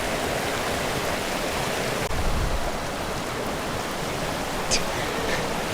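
Steady rush of a fast-flowing mountain creek, with a brief low rumble about two seconds in.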